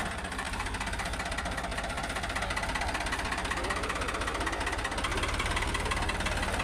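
Farmtrac 45 tractor's three-cylinder diesel engine running steadily at low revs, with a regular low beat.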